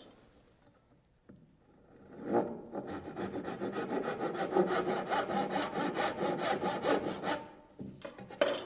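Handsaw cutting the corner off a wooden stair tread in rapid, even strokes, starting a couple of seconds in and stopping shortly before the end.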